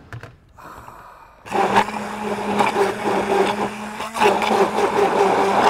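Immersion (stick) blender running in a tall plastic beaker, puréeing boiled cauliflower with cooking water and olive oil into a cream. It starts about a second and a half in with a steady whirring hum and dips briefly once just past four seconds in before running on.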